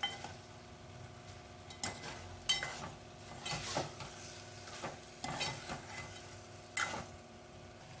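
Quail pieces and onion masala frying in oil in a metal pot, a low sizzle, with a metal ladle stirring and scraping and knocking against the pot several times.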